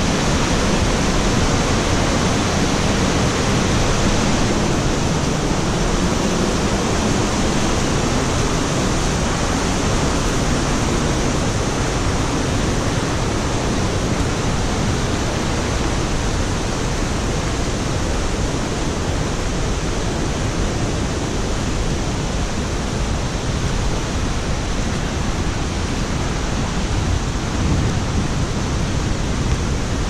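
Fast-flowing brook rushing over rocks in white water, a steady, even rush of water.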